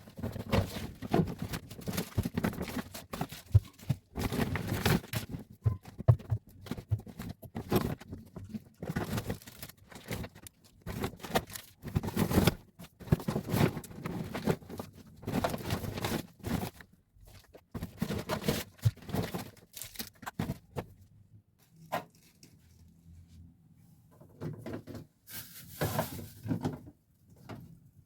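Household items being handled: irregular rustling and scraping with many light knocks and clicks, easing off into a few sparse knocks for a few seconds after the middle before picking up again near the end.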